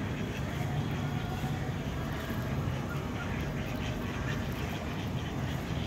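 Steady outdoor city ambience: a low rumble of distant traffic with faint, scattered bird calls.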